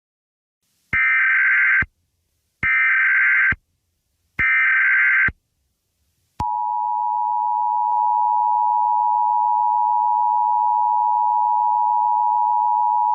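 Emergency Alert System tones: three short screeching bursts of SAME header data, each about a second long, then the steady two-tone attention signal starting about six seconds in, marking the start of a new alert.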